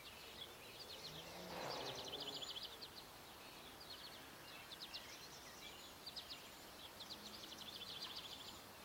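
Faint songbird trills: repeated short runs of rapid high notes, several times through, over a steady low background hiss.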